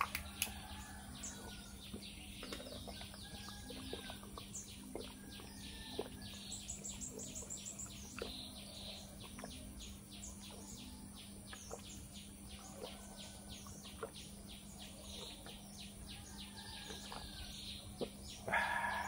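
Small birds chirping and calling, a steady run of quick high chirps with a fast trill about six to seven seconds in, over a faint low hum. A short louder sound comes near the end.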